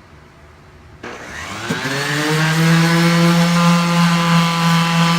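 Handheld electric power tool switched on about a second in, its motor spinning up in rising pitch and then running at a steady high speed with a loud hum and whine.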